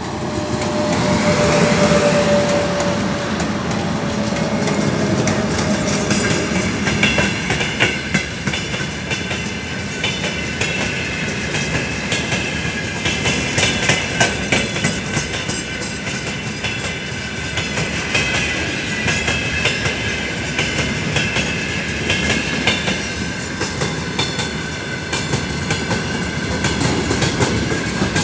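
Freight train of open-top gondola wagons rolling past at close range behind a 3ES5K "Ermak" electric locomotive. The wheels clatter over the rail joints in a rapid, uneven rhythm, with thin high wheel squeal from about six seconds in. The first few seconds are louder, with a steady tone as the locomotive goes by.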